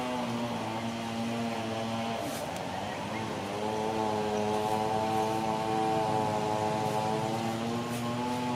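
Steady drone of an engine running unseen nearby. Its pitch wavers and dips briefly about two to three seconds in, then settles and holds steady again.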